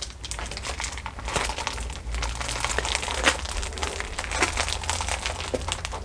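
Thin plastic sheet crinkling under the hands as it is rolled up with fabric around a PVC pipe, in a run of irregular small crackles and rustles.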